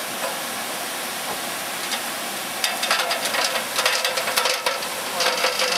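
Steady hiss, with a run of light, quick clicks and knocks starting about halfway through.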